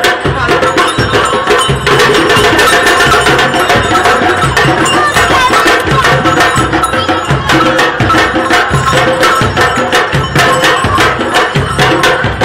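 A group of African hand drums playing loud and without pause: a fast, dense rhythm of sharp strokes over deep bass hits that recur in a repeating pattern.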